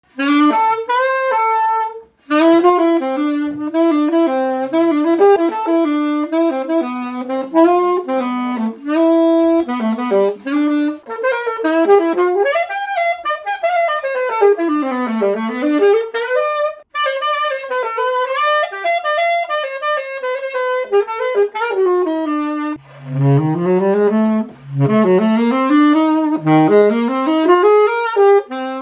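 Early Selmer Super Action 80 alto saxophone (pre-Series II) played solo: a flowing melody of quick runs, with a long downward-and-back-up sweep about halfway through and low notes scooped upward near the end. Its tone is what the player calls dark but round.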